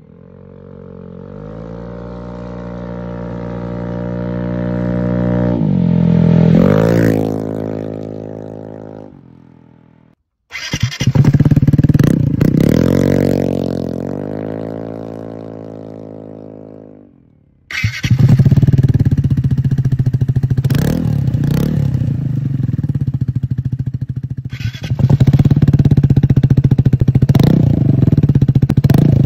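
Piaggio Vespa GTS 300 single-cylinder scooter engine through a REMUS Double Mesh racing exhaust with the dB killer removed and no catalytic converter. It passes by, its pitch rising and then dropping. It rides away with a falling, fading note, then runs up close to the silencers with several sharp cracks, louder for the last few seconds.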